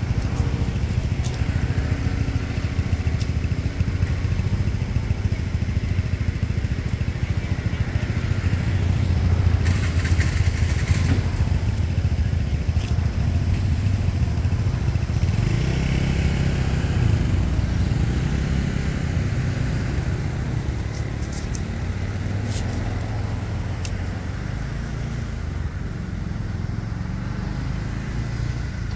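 Engine running steadily as a low drone, swelling a little about ten and again about sixteen seconds in, with a few faint clicks.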